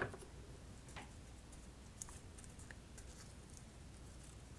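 Faint crackles and small ticks of card stock being wound and pressed around a pen into a rolled spiral paper flower, with a light knock at the very start and another click about a second in.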